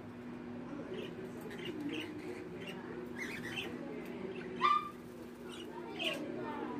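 A pair of budgerigars chattering in courtship, a run of soft short chirps and squawks with one louder chirp about two-thirds of the way through.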